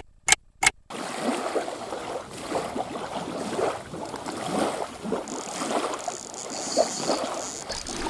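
Clock-ticking sound effect, about three sharp ticks a second, that stops about a second in. After that, small wind-driven waves lap and splash against the lake shore.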